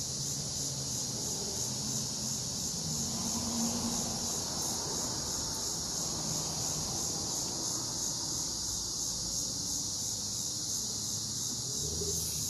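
Crickets chirping in a steady, continuous high-pitched chorus, with a faint low hum underneath.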